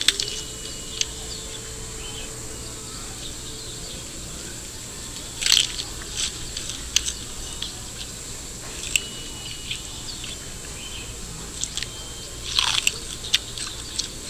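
Virtual panda's bamboo-chewing sound effect: crunching bites in bursts, the loudest about five and a half seconds in and again near the end, with single clicks scattered between them.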